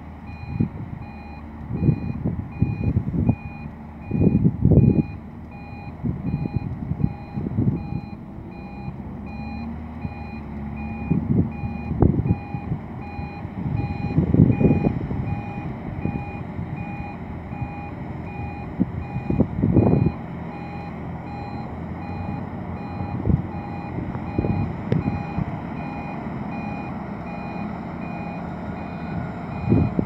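Loaded articulated dump truck reversing, its back-up alarm beeping steadily over the diesel engine. The engine rumbles underneath, with irregular loud low surges as the truck climbs the soft ramp.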